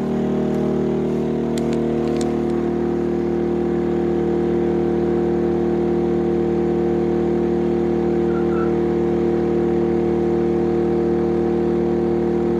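Genmax GM3200i inverter generator running steadily at full load, about 2600 watts, its engine holding a constant pitch.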